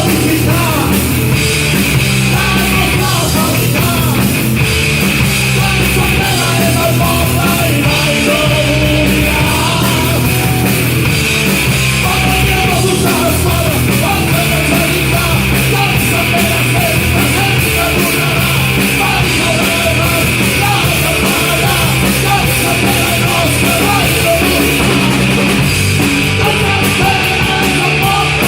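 Punk rock band playing a song live, loud and dense throughout, with drums, bass and electric guitar.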